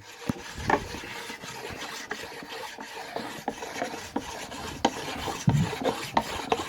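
The fine-grit side of a sharpening stone rubbed back and forth across a wooden cutting board to sand it smooth: continuous scratchy rasping, with scattered light knocks.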